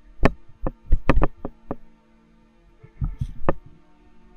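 Sharp, irregular knocks and thumps from walking and handling while carrying a wet cast net over dry ground: about six in the first two seconds, a short lull, then a few more near the end. Faint steady background music runs underneath.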